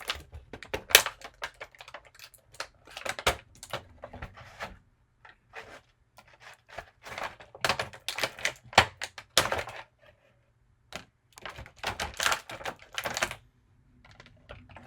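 Hard plastic action-figure parts and accessories clicking and clattering as they are handled and set down, in clusters of quick clicks with a short pause about ten seconds in.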